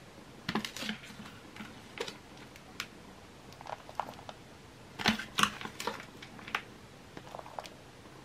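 A metal spoon scooping gritty potting soil from a plastic tray and tipping it into a plastic plant pot: irregular scrapes and clicks, with grit pattering in, the busiest stretch about five seconds in.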